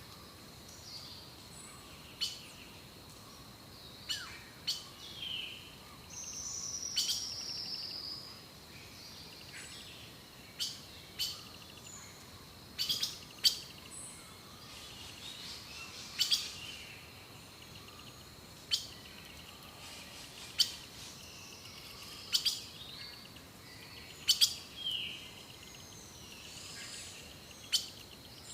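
Birds singing and calling: short, sharp high chirps scattered every second or two, with a longer falling, buzzy trill about six seconds in. A faint steady high tone and a light hiss run beneath.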